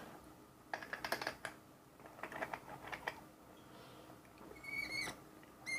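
Small metal clicks and clatter, in two bunches, of a euro dimple lock being handled and clamped into a vise. Near the end come two short, high-pitched squeaks.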